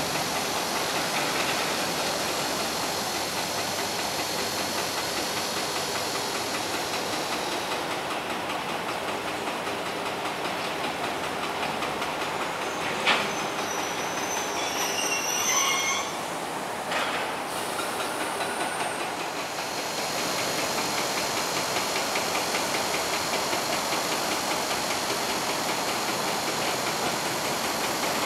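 Railway maintenance wagons of a freight train rolling past, wheels clattering steadily on the track, with a sharp knock about halfway through and a brief high wheel squeal just after it.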